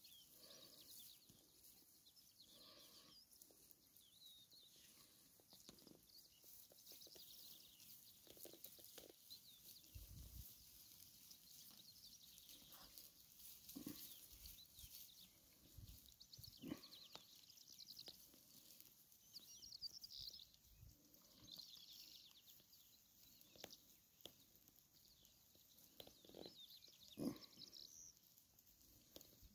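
Faint flock sounds: sheep bleating now and then, among scattered short rustles and knocks.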